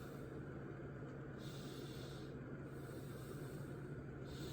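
Steady low hum with a faint hiss; no distinct event stands out.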